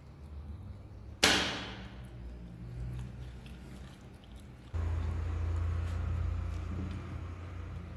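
Homemade wooden slingshot rifle released: its stretched rubber tube bands snap forward with one sharp crack about a second in. A steady low hum cuts in suddenly about halfway through.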